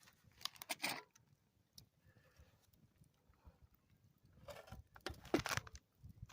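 Short crunching, rustling noises: one burst about half a second in and a longer cluster near the end.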